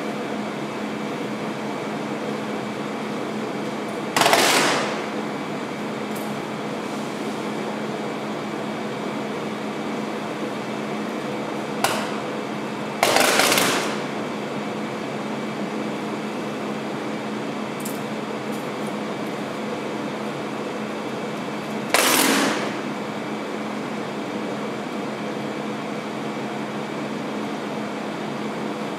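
Adhesive tape pulled off its roll in three loud ripping pulls, roughly nine seconds apart, over the steady hum of air conditioning.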